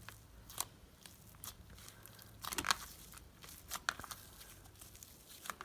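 Buttery, spreadable homemade slime being squished and worked by hand: scattered soft clicks and crackles, a few louder ones around the middle.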